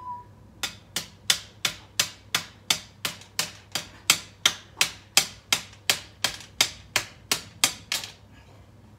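Hammer driving a metal curtain rod into the ground as a plant support: about twenty sharp, evenly spaced blows, roughly three a second, stopping about eight seconds in.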